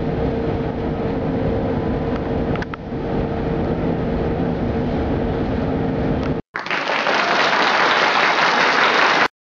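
Tram running, heard from inside the car: a steady rumble with a constant hum. About six and a half seconds in it cuts to about three seconds of loud, hissing rushing noise that stops abruptly.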